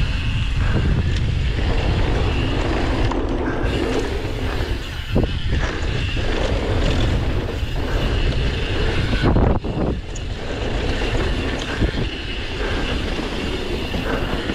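Downhill mountain bike at speed: wind buffeting the microphone over tyres running on dirt and the bike rattling, with a few sharp knocks about five seconds in and again near ten.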